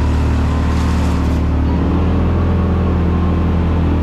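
Engine of a Yamaha Wolverine X4 side-by-side running steadily while driving, a loud low engine tone that holds its pitch.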